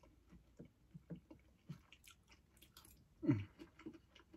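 A person chewing food close to the microphone, with small wet clicks and smacks of the mouth. About three seconds in comes one short, louder sound whose pitch falls.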